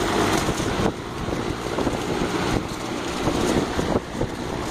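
A machine-made wind blowing hard: a steady loud rush of air with quick, irregular flutters and rattles of fabric and loose small pieces caught in it.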